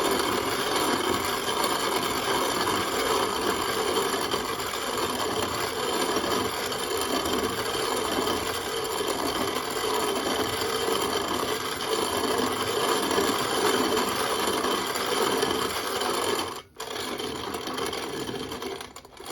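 Antique CS Bell No. 2 hand-cranked grain mill grinding milo (grain sorghum): a steady grinding and rattling as the crank turns, set coarse to just crack the seed rather than make flour. The grinding breaks off sharply about three seconds before the end, then goes on more quietly.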